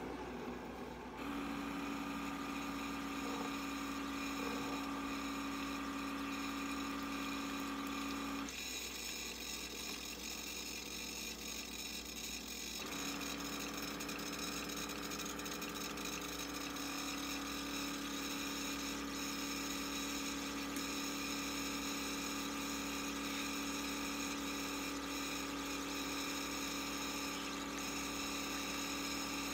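Single-serve pod coffee maker pumping hot water into a bowl of instant ramen: a steady pump hum over water streaming into the bowl. The hum starts about a second in, stops for about four seconds near nine seconds in, then resumes.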